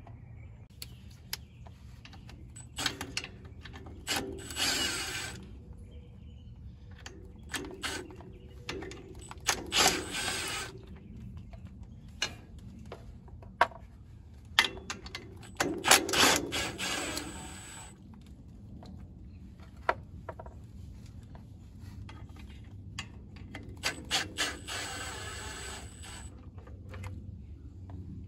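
Socket ratchet clicking in about four short runs, with scattered knocks of the socket and tools, as the bolts of a tractor engine's oil pump bottom cover are loosened.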